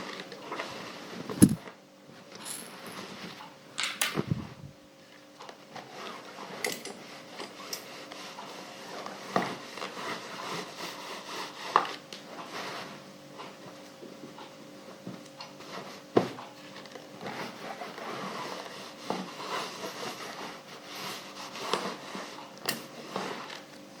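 Clothes being ironed: an iron rubbing and sliding over fabric on an ironing board, with irregular knocks and clunks as it is moved and set down, the sharpest about a second and a half in, around four seconds in and about sixteen seconds in.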